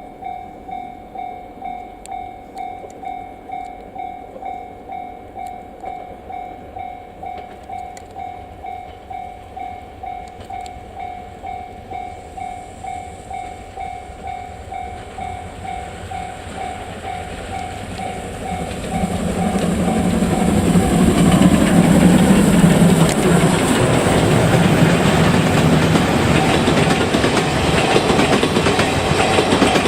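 Japanese level-crossing warning bell ringing steadily about twice a second. About 18 seconds in, a train grows loud and passes on the rails: the C57 steam locomotive with its coaches. For a few seconds the train's noise drowns the bell.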